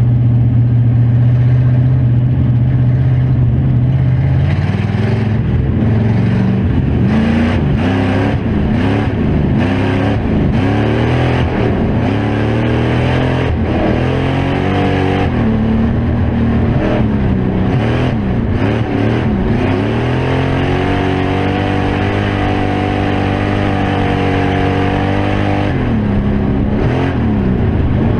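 Factory Stock dirt-track race car's engine, loud from inside the cockpit. It holds a steady note for the first few seconds, then rises and falls again and again as the throttle comes on and off, stays high for several seconds in the second half, and drops off a little before the end.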